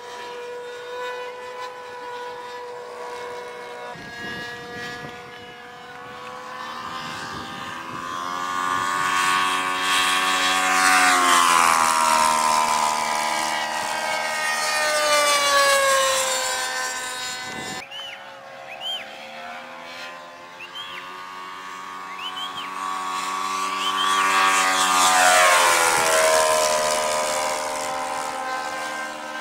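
Engine of a radio-controlled model F6F Hellcat flying low passes: the propeller-engine note grows louder as the plane approaches and drops in pitch as it goes by, twice.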